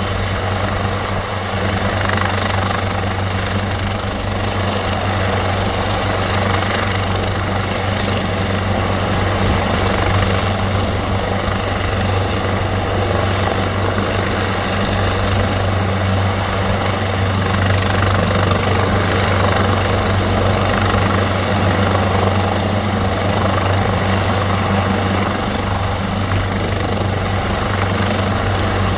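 Police helicopter running steadily overhead: a constant low rotor drone with a high, steady whine above it, unchanging throughout.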